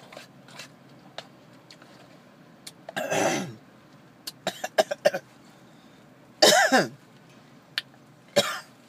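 A woman coughing and clearing her throat in three short bouts: about three seconds in, a louder one about two thirds of the way through, and a brief one near the end, with a few small clicks between them. Food has gone down the wrong way while she eats.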